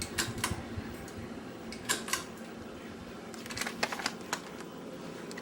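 Old Evergo Roma Emperor ceiling fan running with a steady low hum. Small sharp clicks come in quick pairs and threes, three times.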